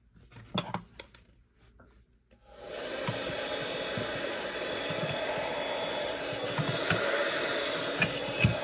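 A few light clicks and knocks, then a handheld mini vacuum switched on about two and a half seconds in. Its small motor spins up quickly and runs with a steady whirring hum while the nozzle sucks lint from around the sewing machine's needle plate.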